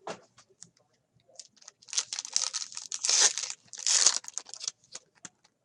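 A trading card pack wrapper being torn open and crinkled by hand, with a dense crackling that builds about two seconds in and stops near the end.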